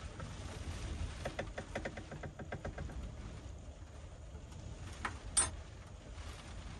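A metal teaspoon stirring in a mug, clinking quickly against its sides about eight times a second for a second and a half. About five seconds in come two sharper clinks, the loudest sounds, as the spoon is tapped on the rim. A steady low rumble of wind and rain on the van runs underneath.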